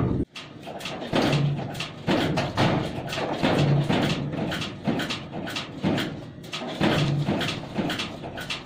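Wooden craft sticks being handled and set down on a wooden table, a run of light irregular clacks and taps. A steady low hum cuts off just after the start.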